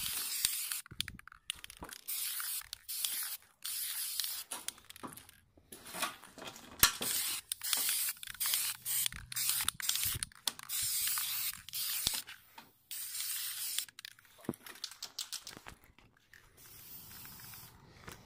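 Aerosol spray paint can spraying onto sheet metal in a series of short hissing bursts, each about half a second to a second long, as letters are painted. A few sharp clicks fall between the bursts.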